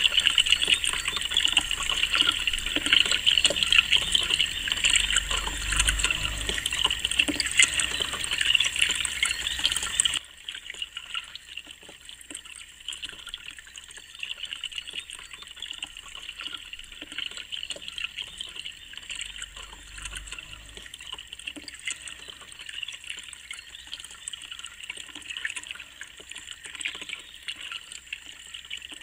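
Water from small solar-powered fountain pumps splashing and falling back into a basin, loud for about ten seconds. It then drops suddenly to a quieter, steady trickle of water.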